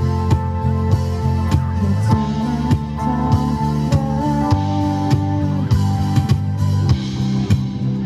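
Live band playing an instrumental passage: guitar over bass and drums keeping a steady beat.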